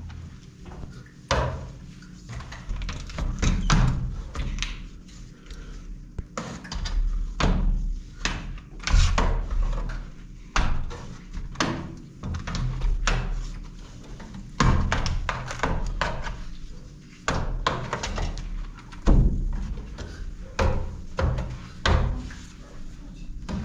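Long-handled scrubbing brush working over soapy window glass, with irregular knocks and thuds as the brush head and pole strike the glass and the metal window frame.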